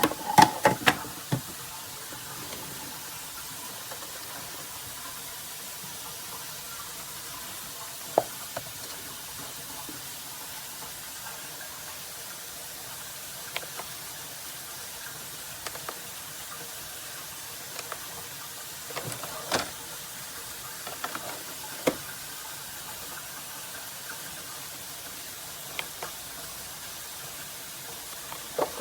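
Scattered sharp knocks and clicks, a quick cluster at the start and then single ones every few seconds, over a steady background hiss.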